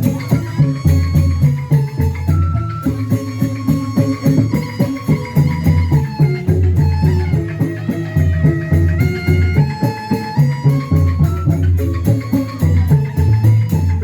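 Instrumental music with a steady beat of bass and percussion under a sustained melody line, without singing.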